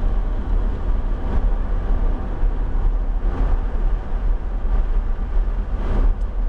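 Lamborghini Huracan's V10 engine running under power, heard from inside the cabin along with tyre and road noise.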